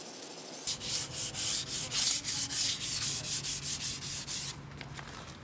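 Hand sanding primer on a car's body panel with 500-grit paper, fast back-and-forth strokes of about four a second, easing off near the end.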